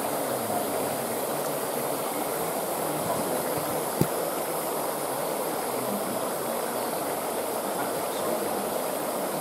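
Water churning across the surface of a shallow water-feature test pool: a steady rushing hiss. A single sharp click sounds about four seconds in.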